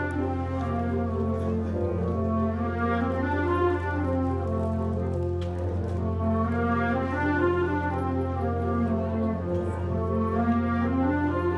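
Wind band playing: clarinets and brass in sustained, moving melodic lines, over a steady low hum.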